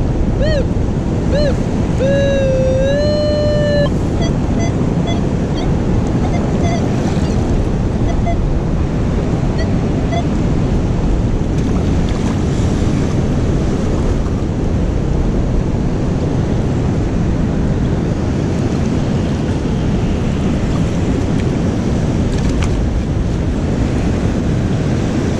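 Surf and wind on the microphone, steady throughout. In the first few seconds a Minelab Manticore metal detector sounds short pitched tones and then a held, wavering tone as it passes over a target, with fainter short beeps following until about ten seconds in.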